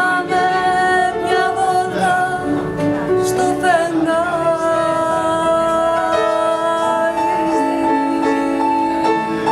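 A woman singing with live piano accompaniment, drawing out long notes with vibrato. She holds one high note steadily through the last couple of seconds while the piano plays beneath.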